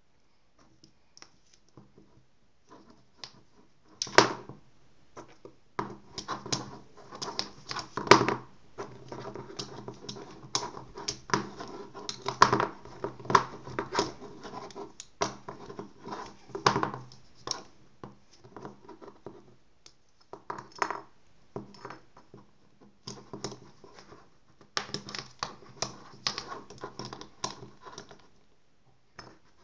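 A black fountain pen and a red ballpoint pen clacking against each other and knocking on a tabletop in a pen fight: a rapid, irregular run of sharp clicks and taps that starts about four seconds in, with short pauses between bouts.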